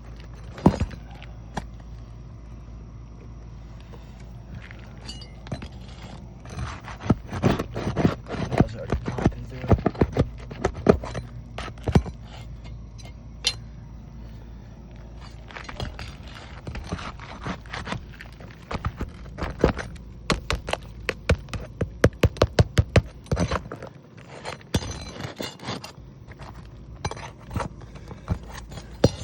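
Metal roofing tool knocking and scraping under asphalt shingles, loosening them from their seal strips and nails, in clusters of quick sharp knocks.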